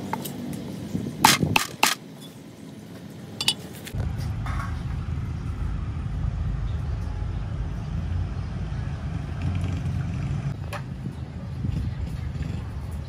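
A few sharp knocks on a thick wooden chopping block while grilled chicken is cut up, then, about four seconds in, a steady low outdoor rumble of roadside ambience.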